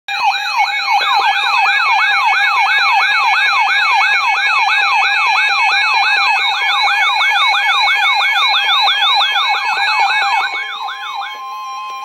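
Weather radios sounding a severe thunderstorm warning alert: a siren-like falling whoop repeats about four times a second over steady electronic tones. The whooping stops about eleven seconds in, leaving a steady tone.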